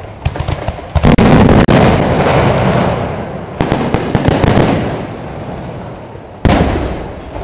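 Aerial firework shells bursting: a string of loud bangs, each trailing off in a long rumbling echo, with smaller pops and crackles in between.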